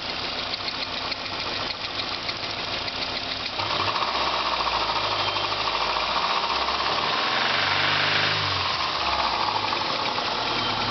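Subaru Legacy GT flat-four engine running with a rapid knocking through it. It picks up about a third of the way in, rises in pitch briefly in a rev, then drops back. The owner suspects rod knock.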